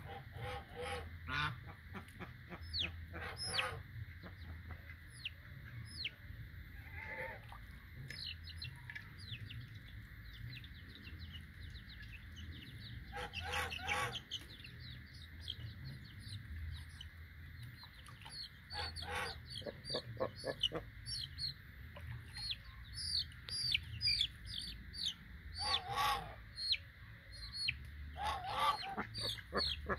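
Bangkok gamefowl chicks, 24 days old, peeping in many short, high, falling chirps, with a few louder, harsher clusters of calls about halfway in, around two thirds of the way in and near the end.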